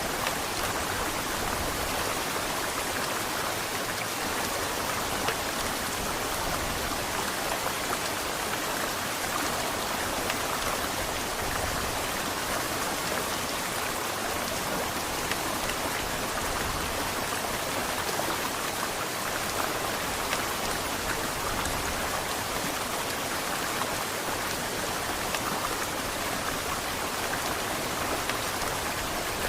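Heavy rain falling steadily, a dense even hiss of drops with no letup.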